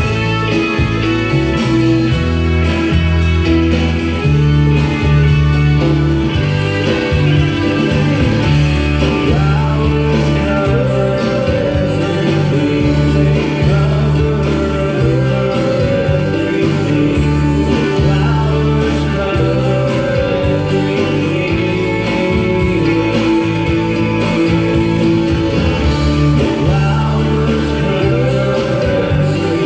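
A song with guitar and singing, played back from a cassette tape on a Pioneer CT-W616DR deck with its digital hiss-reduction processing.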